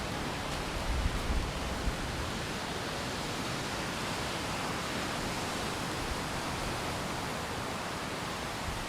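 Steady rushing noise of strong wind and rain, with wind gusts buffeting the microphone about a second in.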